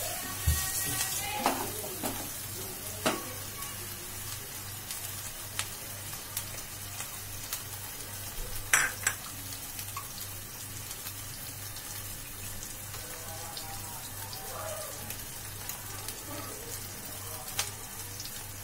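Spice masala paste sizzling and crackling as it fries in oil in a non-stick kadai. A wooden spatula scrapes and knocks against the pan a few times in the first three seconds, and there is a louder knock about nine seconds in, then the paste keeps sizzling with small pops.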